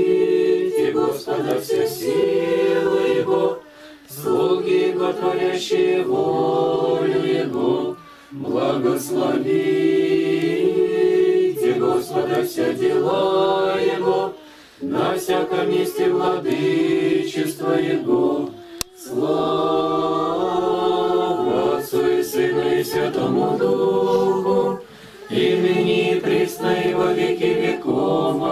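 A congregation singing an Orthodox liturgical chant a cappella in several voices, in sustained phrases of a few seconds each with short breaks between them.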